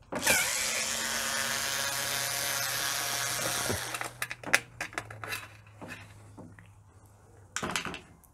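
Cordless electric screwdriver with a Torx T15 bit spinning for about three and a half seconds, backing out a screw from the dishwasher's bottom panel; it starts with a quick rise in pitch and stops suddenly. Light clicks and taps of handling follow.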